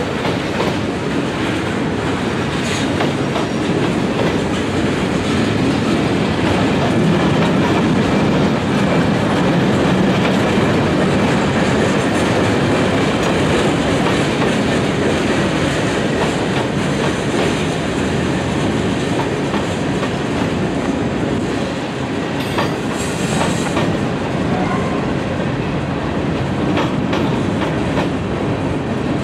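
Freight train cars (tank cars, a boxcar and covered hoppers) rolling past close by, a steady loud rolling noise with repeated clicks of wheels passing over rail joints.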